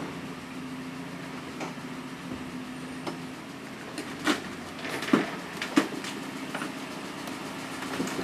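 A vehicle engine idling steadily, with a handful of sharp knocks from work inside an enclosed car trailer, the loudest two about five and six seconds in.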